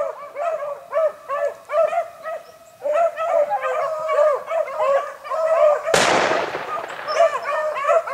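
A pack of beagles baying in a steady run of overlapping calls while trailing a rabbit. About six seconds in, one gunshot cracks over the hounds and rings out for about a second.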